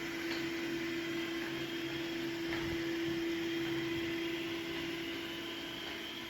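Dreame X50 Ultra robot vacuum-mop running, a steady motor hum with a constant tone over a hiss of airflow, and a few faint ticks.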